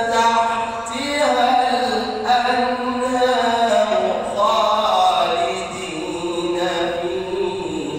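A male reciter chanting the Quran in a melodic recitation style. His voice holds long, drawn-out notes that slide up and down in pitch, with only brief pauses for breath.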